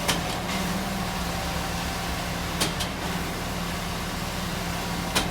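Concrete mixer truck's diesel engine running steadily with the mixing drum turning, with a few sharp clicks, two of them close together midway.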